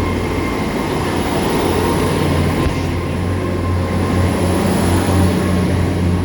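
Great Western Railway Class 802 bi-mode train standing with its underfloor engines running. It gives a steady low hum, with a thin high whine above it.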